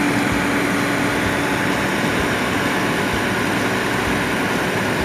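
Ladder fire truck's engine running steadily, a constant mechanical noise with a low hum that fades about a second in.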